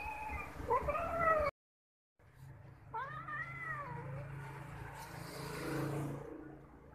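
Tabby stray cat meowing, with one clear, drawn-out meow about three seconds in. The sound drops out briefly near the middle.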